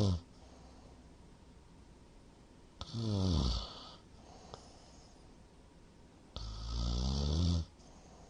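Loud snoring of a sleeping man: the end of one snore, then two more snores about three seconds apart, each lasting about a second, the last one a little longer. The uploader puts the heavy snoring down to having drunk too much that night.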